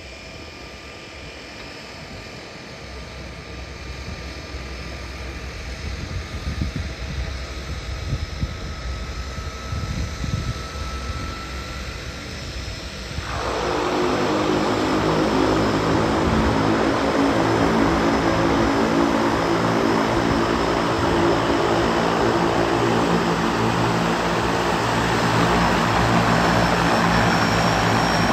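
de Havilland Canada DHC-3 Otter floatplane taxiing on the water: a thin turbine whine over a propeller drone, slowly growing louder. About halfway through it jumps suddenly to a much louder, rough propeller drone with the whine on top, and stays steady.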